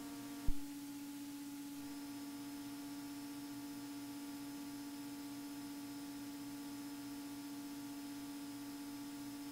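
Faint, steady drone of a Beechcraft Bonanza A36's engine and propeller in flight on final approach, coming through as one even tone with overtones, as on a headset intercom feed. A short click about half a second in.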